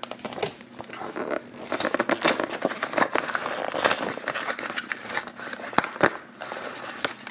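Clear plastic blister packaging crinkling and its cardboard backing tearing as a small toy figure is pushed out of a toy multipack: an irregular run of crackles and sharp snaps.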